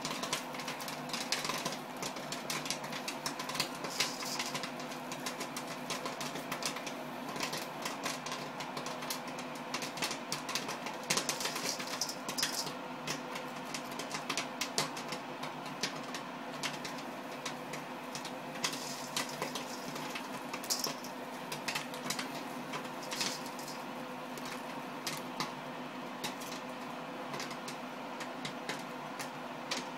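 Popcorn popping in the kettle of a commercial popcorn machine: a rapid, irregular crackle of pops, thicker in the first half, over a steady hum from the machine.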